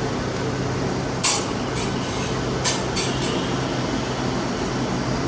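Steady low machine hum of room ventilation, with a few short sharp clinks a little after a second in and again around three seconds in.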